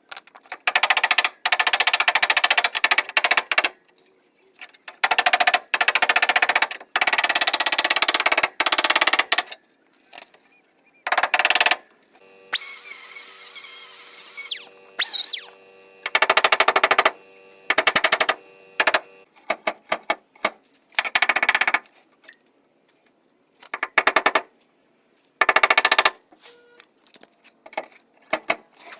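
A power tool run on sheet-metal bodywork in repeated short bursts of rapid rattling, with pauses between them. About halfway through there is a longer, steadier run with a high whine.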